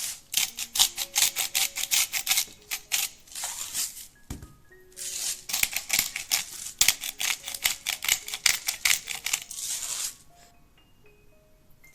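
Rapid runs of sharp tapping from kitchen food preparation, several taps a second, in two spells with a short pause between them, each ending in a brief scraping sound. Soft mallet-percussion background music plays throughout.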